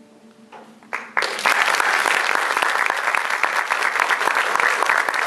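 The last cello note fades away, then an audience starts applauding about a second in and keeps clapping steadily.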